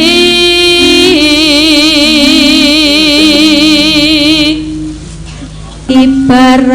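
Javanese gamelan music with a sung vocal line, long held notes with heavy vibrato, over steady instrument tones. The voice drops out about two-thirds of the way through, and a new sung phrase starts near the end.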